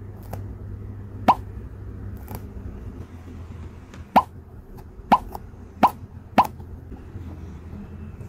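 Sticky jelly squishy bear toy squeezed by hand, giving five short sticky plops, one early and then four in quick succession in the second half.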